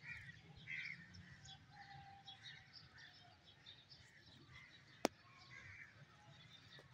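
Near-quiet open air with faint birds chirping over a low steady background rumble. One sharp click about five seconds in.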